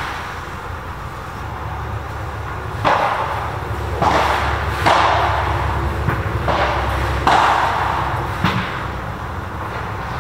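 A padel rally: the ball is struck back and forth with rackets, about six sharp hits roughly a second apart, each ringing briefly under the covered court, over a steady low rumble.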